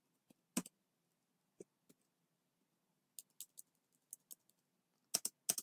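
Computer keyboard keystrokes: about nine separate clicks typed a few at a time with pauses between them, and a quick pair near the end.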